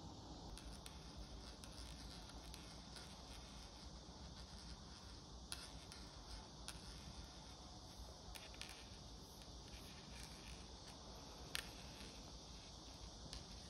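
Faint steady high hiss of quiet room ambience, with a few soft scattered clicks from bamboo knitting needles at work.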